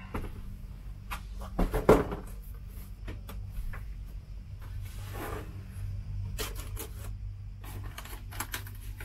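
Cardboard boxes being handled and opened: a loud thump about two seconds in as a large box comes down on a wooden table, then scattered scrapes, rustles and knocks of cardboard, over a low steady hum.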